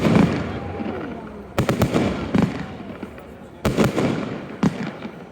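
Fireworks display: aerial shells bursting overhead, five loud bangs at uneven intervals of about a second, each trailing off in a rumbling echo and crackle.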